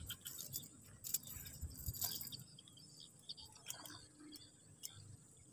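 Faint irregular clicks and clinks of fishing tackle being handled, the reel and metal gear, over a steady high insect drone.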